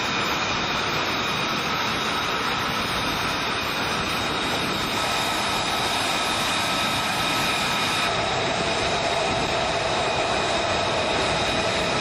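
An F-35B Lightning II's F135 turbofan engine idling on the ground: a steady jet rush with several high whining tones. A lower whine joins about two-thirds of the way through.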